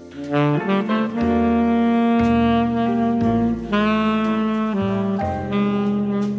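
Tenor saxophone playing a jazz ballad melody: a quick rising run of notes about half a second in, then long held notes, over a low bass accompaniment.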